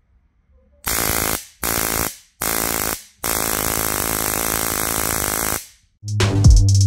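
High-voltage spark arcing across the two electrodes of a homemade stun-gun-style dog chaser: three short buzzing zaps, then one held for about two and a half seconds. Electronic music with drums comes in near the end.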